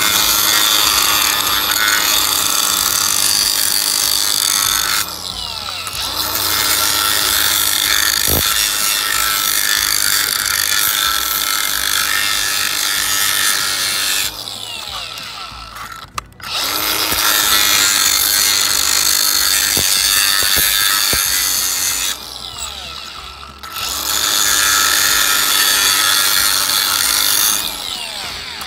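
Angle grinder cutting and grinding the edge of a clear plastic sheet, with a steady motor whine under a harsh, high grinding noise. It eases off three times, the pitch falling as the disc slows, then picks up again.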